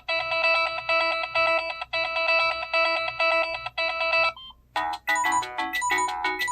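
Samsung SGH-T309 flip phone playing its built-in alarm tones through its small speaker. A repeating beeping pattern stops about four seconds in, and after a brief pause a different, faster chiming melody starts.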